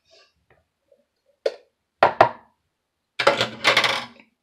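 Hard plastic knocks as the blade insert is pulled from a mini food processor's plastic bowl, two in quick succession about two seconds in, then about a second of rattling clatter as the bowl of chopped onions is handled and tipped.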